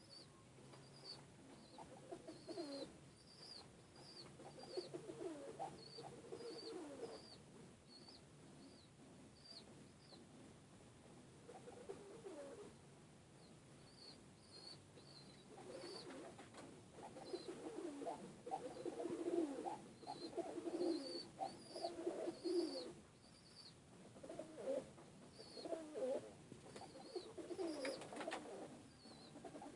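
Domestic pigeons cooing in repeated low warbling phrases, busier and louder in the second half, with a string of short high-pitched chirps over them.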